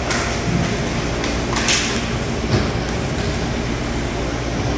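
Rink sounds of a roller hockey game: a steady low hum, with two sharp scrapes of skates, sticks or puck on the plastic floor, one right at the start and a louder one nearly two seconds in.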